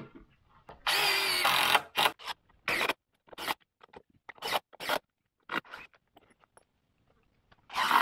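Cordless drill driving screws into timber: one run of about a second with a steady motor whine, then several short bursts on the trigger.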